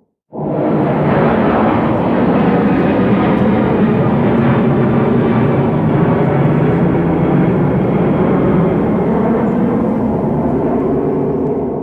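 Jet plane engines running in a steady, loud rush with a faint hum of steady tones, as heard during a landing or arrival. It starts suddenly a moment in and holds level throughout.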